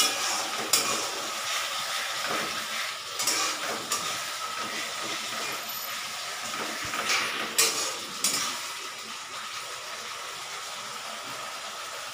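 Metal spatula scraping and stirring a masala paste in a kadai, over a steady sizzle of the paste frying in oil that has already separated from it. The scraping stops about two-thirds of the way through and the sizzle goes on alone.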